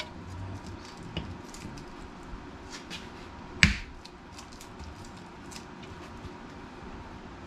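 Hands working with small plastic parts: scattered light clicks and taps, with one sharp, louder click about three and a half seconds in.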